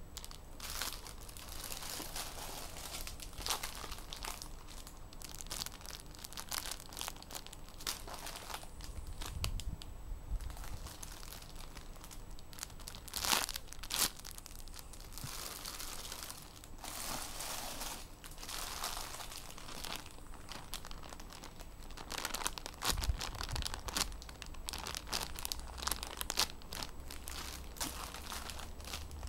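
Clear plastic bags rustling and crinkling irregularly as bagged squishy toys are picked up and handled, with a few sharper crackles about halfway through.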